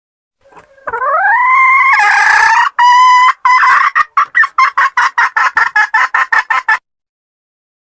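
Red junglefowl hen calling: one long call rising in pitch, a short held note, then a quick run of clucks, about five or six a second, that stops abruptly.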